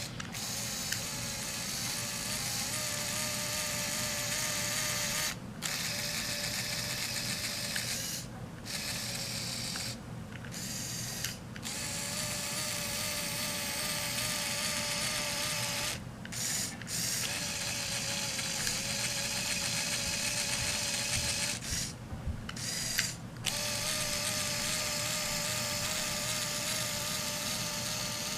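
Small electric motor driving the plastic gear drivetrain of a Lego Technic truck, a steady whir with a faint tone that stops for a moment several times and starts again.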